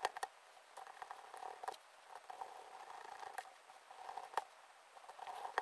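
Faint scattered clicks and ticks of a screwdriver turning steel screws into a metal V2 airsoft gearbox shell, with small handling knocks as the gearbox is held closed.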